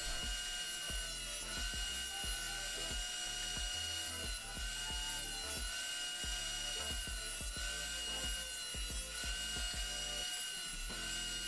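Makita benchtop thickness planer running with a steady high whine while pine pieces are fed through and planed to the same thickness, with irregular knocks and cutting noise as each piece goes through.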